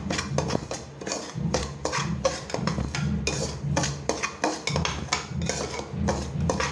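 A spoon scraping and stirring semolina in a metal kadai, in quick repeated strokes about two to three a second, as the rava is roasted in ghee until the grains stay separate.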